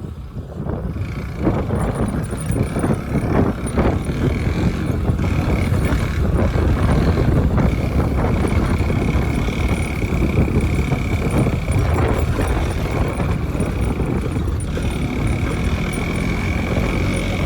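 Motorcycle on the move, heard from a helmet-mounted phone: engine running under heavy rushing noise, with a steady high whine that sets in about a second in.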